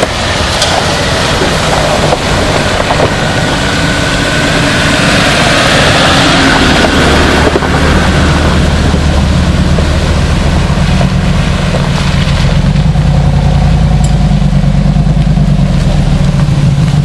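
Off-road 4x4s driving through a shallow stream crossing: water splashing about halfway through as a Hummer H2 ploughs through. Then the H2's V8 engine runs steadily at low speed, its low note strongest near the end as the truck passes close.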